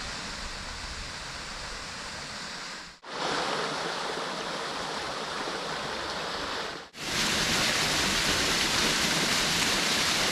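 Stream water running and splashing steadily, in three takes cut together, the last one louder and closer.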